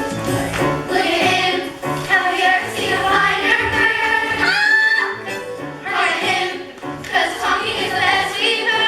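Chorus of voices singing a show tune over backing music, the sung notes held and gliding.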